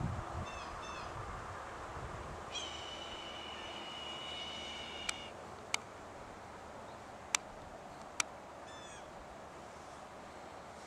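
Birds calling: short down-slurred notes about half a second in and again near the end, with a long steady high whistle lasting nearly three seconds in the middle. Four sharp clicks sound in the second half.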